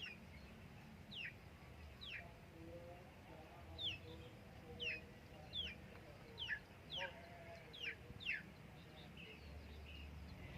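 Chicks peeping: about a dozen short, high peeps, each falling in pitch, repeated irregularly every half second to a second.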